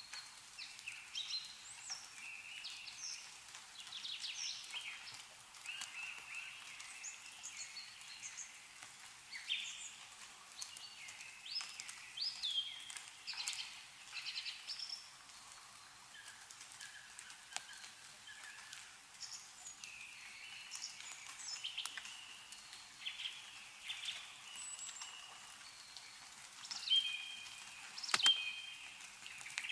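Small songbirds chirping and calling over one another in short, high phrases, with a few sharp ticks of meltwater dripping from snowy trees; the loudest tick comes near the end.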